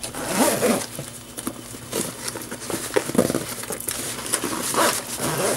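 Irregular rustling and scraping of a packed black nylon toiletry bag as it is squeezed and zipped shut over bulky contents.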